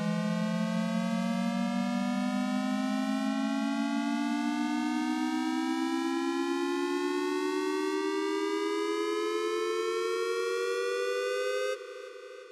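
SHR Tones software dub-siren synth sounding a held tone that glides slowly and steadily upward in pitch. Near the end it cuts off suddenly, leaving a fading delay echo.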